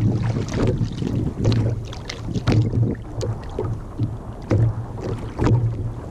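Small waves slapping irregularly against a sit-on-top kayak's hull, a low knock about once or twice a second, with wind on the microphone.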